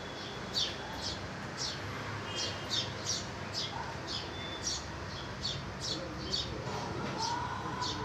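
House sparrows chirping, a quick run of short sharp chirps about two a second.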